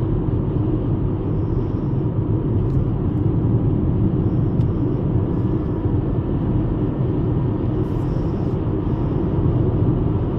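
VW Golf Mk5 (75 hp) cruising at a steady speed: an even low rumble of engine and road noise that holds without change.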